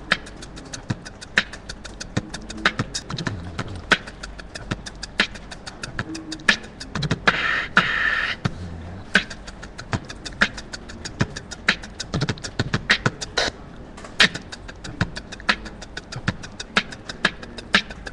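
Beatboxing: a person making quick, rhythmic percussive mouth clicks and snare-like hits, with a longer hissing sound lasting about a second a little past seven seconds in.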